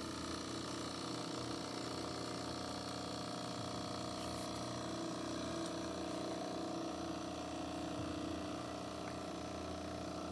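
Capsule coffee machine running through a brew: a steady buzzing hum of its pump, with several steady tones and a faint hiss.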